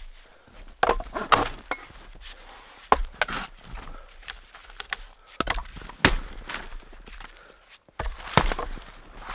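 Wood being struck and broken: irregular sharp knocks and cracks, some followed by a short splintering rasp, spaced roughly half a second to two seconds apart.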